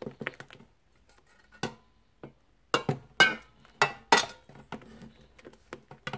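A spoon and spatula clinking and scraping against a stainless steel mixing bowl while lime coulis is stirred into whipped cream. The strokes come as a string of sharp clinks, loudest in a run in the middle.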